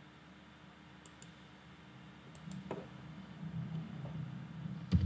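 Computer mouse buttons clicking, three quick double clicks spread over a few seconds, with a low thump at the last one near the end.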